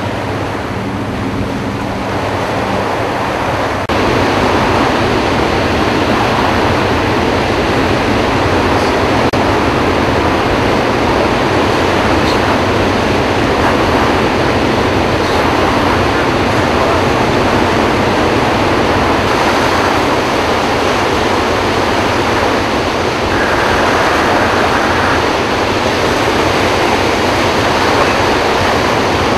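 Floodwater rushing and churning below Kaw Dam as it pours out through the dam's eight open spillway gates in a high flood release. A loud, steady rush, a little louder from about four seconds in.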